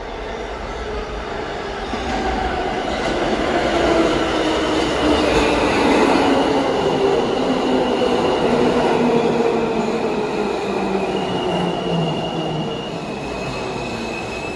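A New York City subway train of R160 cars pulls into the station and slows: a rumble with a motor whine that falls in pitch as it brakes. High, steady squeals from the wheels and brakes come in near the end as it comes to a stop.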